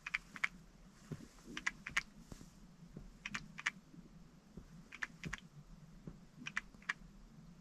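Faint, light clicking from a Nissan T32 X-Trail, the cold-weather rattle ('kacha-kacha'). The clicks come in pairs or small clusters, a group roughly every second and a half, over a faint low steady hum.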